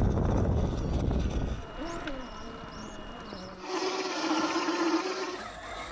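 A low rumble, then, about three and a half seconds in, a scale RC crawler's small electric motor whining steadily while its tyres crunch over gravel for about a second and a half.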